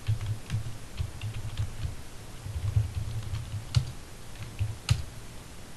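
Typing on a computer keyboard: an uneven run of key clicks with soft thumps, two sharper, louder strokes a little under four seconds in and about five seconds in, then the clicks die away near the end.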